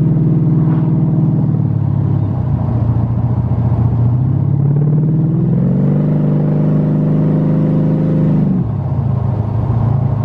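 Carburetted engine of a hot-rodded Jaguar XJ, heard from inside the cabin while driving. The engine note drops about two seconds in, climbs again around five to six seconds, holds, then falls off abruptly near the end as the revs come down.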